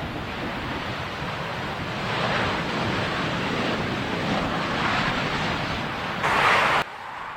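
Strong wind buffeting the microphone, a rushing roar that swells and fades. After a brief louder gust it cuts off suddenly near the end.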